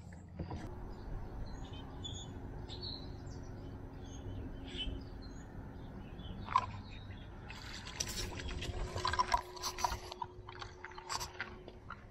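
Faint bird chirps, then from about seven and a half to ten seconds in a spell of splashing water with crackling and rustling.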